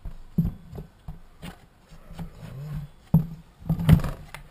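Clunks and knocks of a chainsaw body and its plastic handlebar being handled and turned over on a workbench, with scraping in between. There are three sharp knocks: one about half a second in and two close together near the end.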